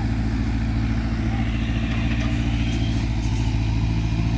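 Diesel engine of a Sumitomo hydraulic excavator running steadily at a constant speed, with a fast, even low pulse.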